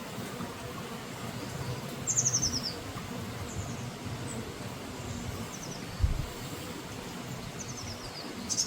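Honeybees humming steadily around an open hive. Over the hum a small bird calls in short, quickly falling chirp phrases several times, loudest about two seconds in, and there is one dull low thud about six seconds in.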